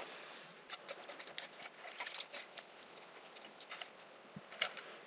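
Faint, irregular small clicks and ticks of hand work on the router's switch wiring: a screwdriver backing out a small terminal screw and the parts being handled.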